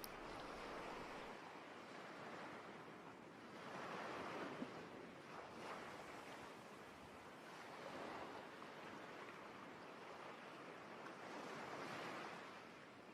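Faint recording of sea waves breaking on a shore, swelling and ebbing about every four seconds.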